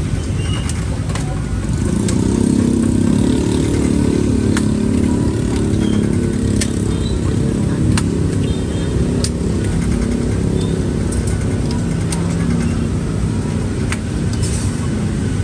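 Street traffic with a motor vehicle engine running close by, its hum strongest a couple of seconds in, with scattered sharp clicks.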